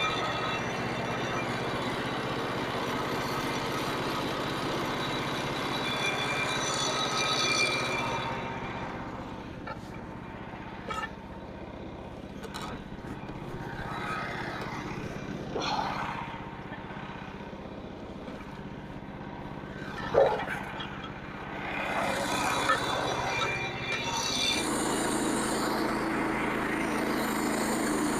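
Small gas engine of a portable bandsaw sawmill running, with the band blade cutting a red oak log. About 8 s in it drops quieter, with a few sharp knocks. It comes back louder around 22 s and settles into a steady, higher-pitched run near the end.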